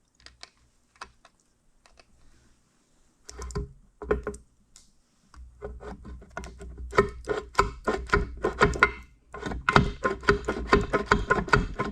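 Metal-on-metal hammer taps on the steel parts of a grain drill's gearbox, about four a second, each with a short ringing note. The taps come in two runs in the second half, after a few scattered clicks and knocks, as a part is driven out.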